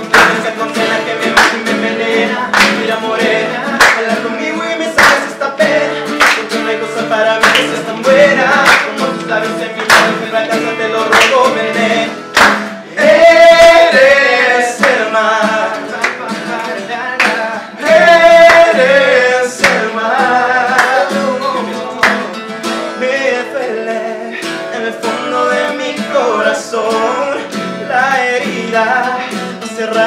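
Two acoustic guitars strummed together with male voices singing, and hand claps keeping the beat.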